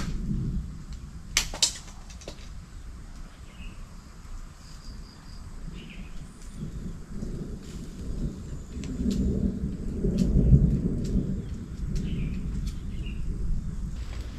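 Distant thunder rumbling, swelling about seven seconds in and peaking around ten seconds before fading. A few sharp clicks near the start and faint short chirps sound over it.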